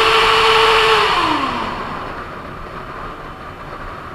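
Yamaha FZ6-S inline-four motorcycle engine revving hard: it climbs to a high pitch, holds it for about a second, then falls away. Steady wind and road noise follows.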